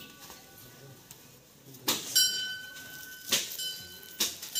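Small metal bell struck several times, each strike ringing on for a moment.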